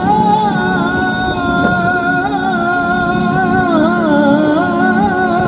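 A man's voice singing a long, held, ornamented melodic line into a handheld microphone, the pitch wavering and bending around sustained notes without a break.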